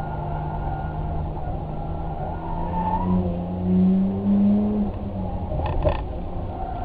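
Car engine running steadily. Its pitch rises about halfway through and drops back near the end, where two sharp clicks sound close together.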